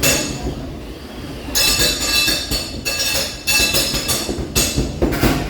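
Combat robots colliding: a sharp metal hit, then a run of harsh screeching, grinding bursts as a vertical spinner weapon and a wedge plow scrape against each other.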